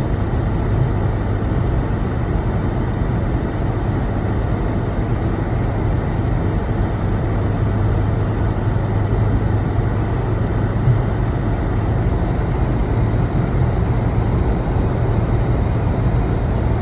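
Steady low engine and road rumble of a Mercedes-Benz car under way. Its exhaust has just been repaired, and no muffler noise stands out.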